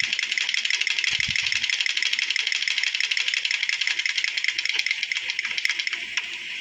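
Sewing machine running at a steady speed and stitching, with a fast, even clatter of many stitches a second that eases off near the end.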